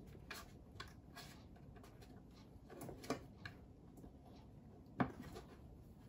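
Two cats, a brown tabby and a black-and-white tuxedo, play-fighting on a wooden shelf: soft scuffles and light taps of paws and claws on the wood, with a sharp knock about five seconds in.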